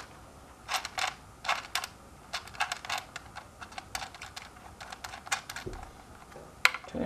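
Irregular light clicks and taps of plastic and small metal parts as a power switch button, its wires and its retaining nut are worked into a hoverboard's plastic shell, with a louder click near the end.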